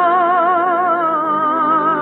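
Radio-drama orchestral music: a long held melody note with steady vibrato that steps down slightly in pitch about halfway through.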